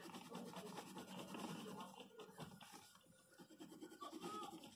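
Faint scratching of a coloured pencil being rubbed back and forth over sketchbook paper, colouring in.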